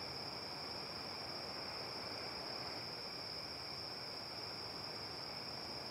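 Faint night-time crickets trilling as one unbroken high tone over a low, even hiss.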